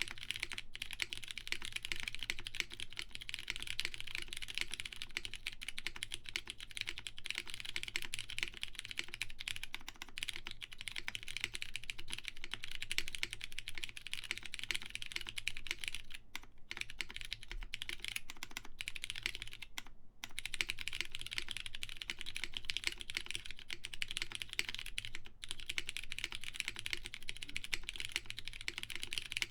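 Continuous fast typing on a plateless mechanical keyboard with lubed Cherry MX Brown tactile switches, 55 g springs and GMK doubleshot ABS keycaps: a steady stream of soft, muted key clacks. It pauses briefly twice, a little past the middle.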